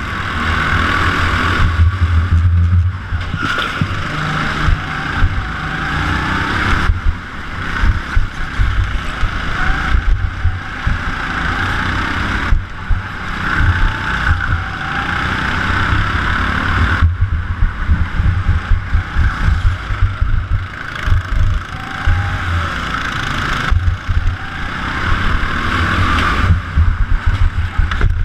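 Go-kart engine running hard, its sound swelling and dropping every few seconds as the kart accelerates and lifts through the corners, over a constant low rumble.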